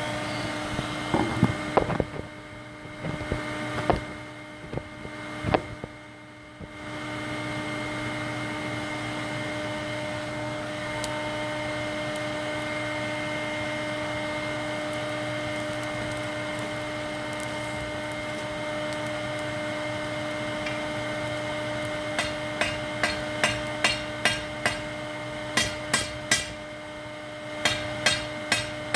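Hand hammer striking hot steel on an anvil while forging a sword tip: from about three-quarters of the way in, groups of several sharp, ringing blows with short pauses between. Under it runs a steady machine hum, and the first few seconds hold scattered knocks and clatter of handling.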